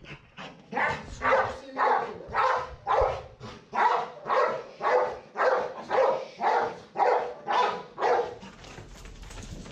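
XL American Bully barking in a steady rhythm, about two barks a second, stopping shortly before the end. These are protection-work barks, the dog barking at a decoy with a bite sleeve while held back on the leash.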